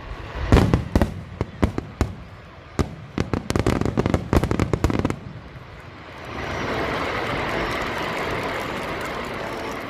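Aerial fireworks going off: sharp bangs, with a rapid string of reports about three to five seconds in. Then, from about six seconds, a dense steady rush of sound takes over.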